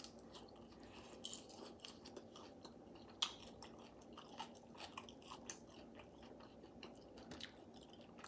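A person chewing and biting hard-fried naked chicken wings: faint, irregular mouth clicks and small crunches, with one sharper click about three seconds in.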